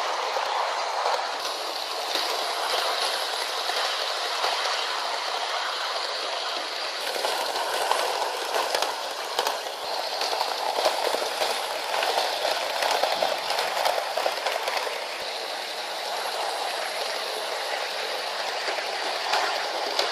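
Model train coaches rolling along sectional track on a wooden floor: a steady rolling rattle of small wheels on rails, with faint clicks over the rail joints.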